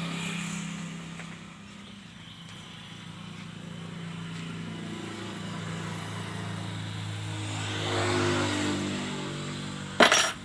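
A motor vehicle engine running at a steady low pitch, swelling louder about eight seconds in, then a single sharp knock near the end.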